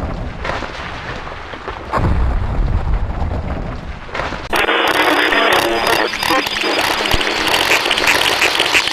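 A low, rumbling noise, then loud, dense music that cuts in abruptly about four and a half seconds in.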